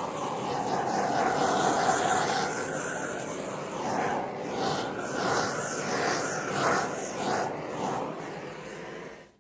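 Handheld gas torch burning with a steady hiss as its flame is passed over wet acrylic pour paint, cutting off suddenly near the end.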